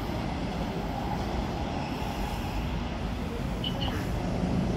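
Steady low rumble of an electric commuter train running along the track as it pulls away from the station. Two brief high chirps sound near the end.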